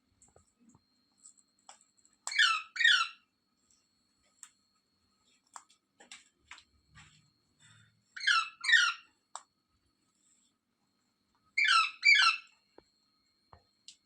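Pet green parrot calling: a high-pitched double call, two quick notes each time, given three times a few seconds apart, with faint clicks between the calls.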